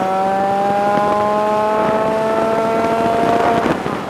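Two-stroke 100cc kart engine at full throttle, its note climbing slowly as the kart gathers speed down the straight. About three and a half seconds in, the note breaks up and the revs fall away as the throttle is lifted for the next corner.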